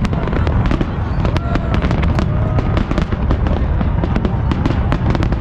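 Aerial fireworks going off in rapid succession: a dense crackle of many sharp bangs over a continuous low rumble of booms.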